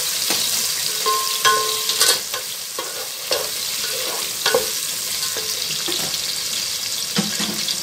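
Chopped onions sizzling as they fry in oil in a cooking pot, stirred throughout, with the stirring utensil repeatedly scraping and clinking against the pot.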